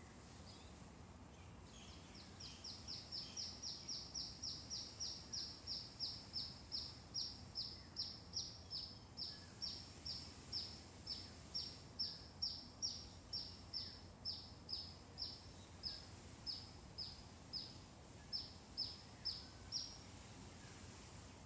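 A bird calling: a long run of short, high notes, each sliding downward. The notes come fast at first, about three a second, then slow to about two a second. They start about two seconds in and stop near the end, over a faint low outdoor rumble.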